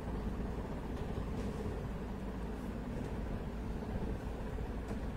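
Steady background noise, mostly low in pitch, with no distinct event standing out.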